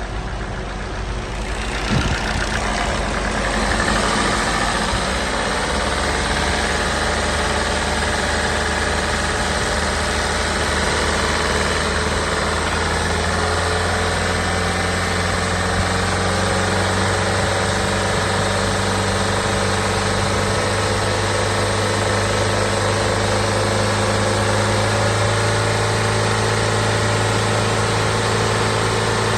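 2013 Buick Verano's 2.4-litre four-cylinder engine starting about two seconds in, then idling steadily with lifter noise.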